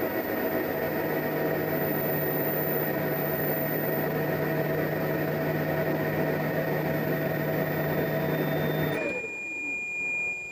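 Steady electrical hum and whir from a power-amplifier test bench under load, with a low hum and a few steady tones. About nine seconds in it cuts off abruptly as the AC power source turns off, and a steady high-pitched tone then sounds.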